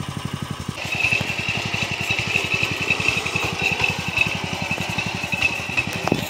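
Small single-cylinder petrol engine of a new walk-behind power tiller running with an even pulse. About a second in it gets louder and a steady high whine joins it. A short click comes near the end.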